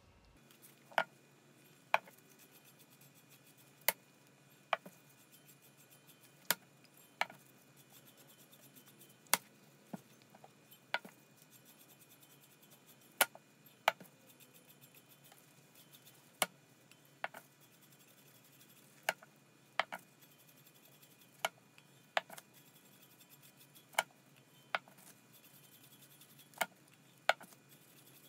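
A chip paint brush working alcohol ink over a stainless steel tumbler: sharp, light taps at irregular intervals, roughly one a second, over a faint steady hum.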